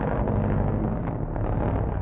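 Steady low rumble of a moving vehicle with road noise, no distinct impact.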